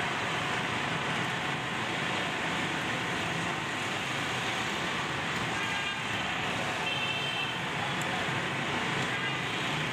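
Steady roadside noise of passing traffic mixed with lentil fritters (laddu peethi) deep-frying in a large karahi of oil.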